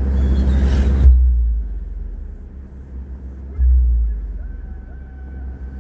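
Car driving, heard from inside the car: a steady low road and engine rumble, with swells about a second in and again midway. An oncoming vehicle passes with a rush of noise in the first second.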